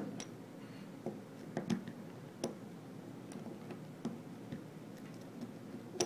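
Irregular light metallic clicks of a pick working the rotating discs inside a Sargent & Greenleaf high-security disc padlock.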